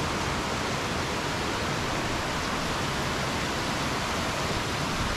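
Steady rush of water from a strong, fast-flowing stream.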